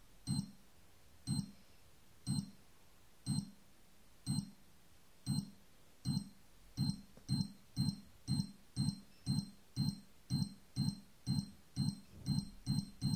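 C4 bomb countdown beeps played through a subwoofer: each beep comes with a low thump from the speaker, about one a second at first, speeding up to about two a second from about six seconds in.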